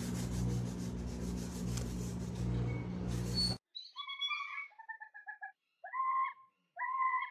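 A loud, steady, noisy hum that stops abruptly after about three and a half seconds. It is followed by a run of short, pitched animal calls, about half a second each, several in a row.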